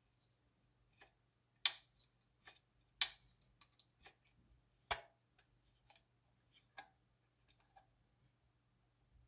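Sharp clicks and ticks of small metal parts as the lock button of a Kiev 6C / Kiev 60 camera is taken apart by hand. Three loud clicks come a second or two apart, with fainter ticks and taps between.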